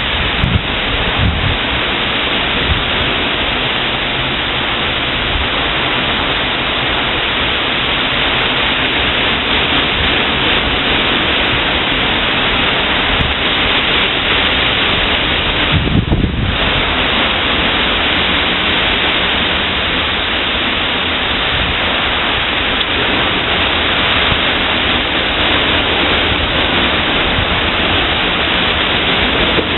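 Heavy thunderstorm downpour: a steady, dense hiss of rain pouring down, with a brief low rumble about halfway through.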